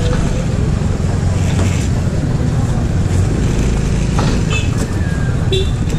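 Motor scooter running at low speed through busy street traffic, a steady low rumble with voices around it. A couple of short high chirps come about four and a half and five and a half seconds in.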